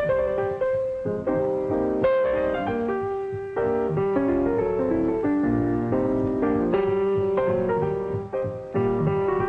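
Piano music from a 1940s 16mm film soundtrack: chords and runs struck in quick succession with no singing.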